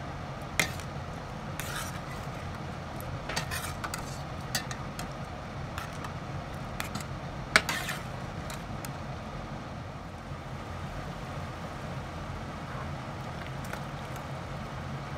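A metal ladle stirring broth in a stainless steel pot, clinking and knocking against the pot's side a few times, loudest about halfway through. A steady low hum runs underneath.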